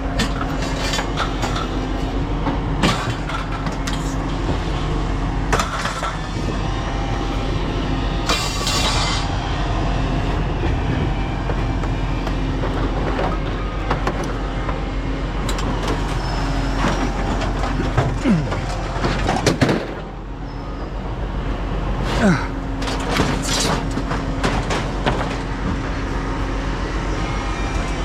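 A vehicle running steadily with a low rumble and a held hum, with scattered knocks and rattles throughout.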